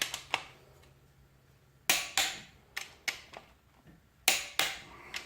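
Torque wrench being pulled on the connecting-rod bolts of an LQ4 6.0 V8, giving a series of sharp metallic clicks, several of them in pairs.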